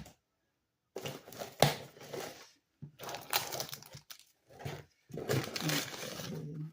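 Packaging crinkling and rustling as a parcel is unwrapped by hand, in four bursts with short pauses between them.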